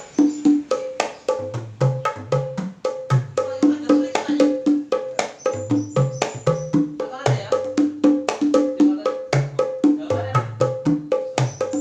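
A set of five small wooden hand drums with rawhide and synthetic heads, sold as 'kempul mini', played with bare hands in a quick, steady rhythm: sharp slaps mixed with ringing pitched tones from the different heads, several strokes a second.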